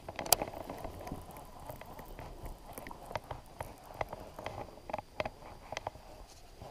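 Scattered, irregular light taps and knocks on a kayak, with one sharper knock about a third of a second in.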